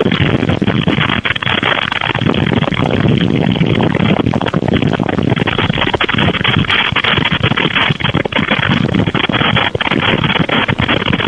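Strong wind buffeting the microphone: a loud, steady rushing roar full of crackle.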